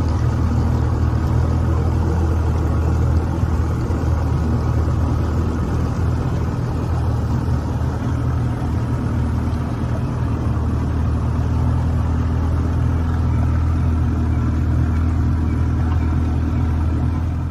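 Outboard motor of an aluminum flat-bottomed boat running steadily, a deep even engine sound with no change in pitch.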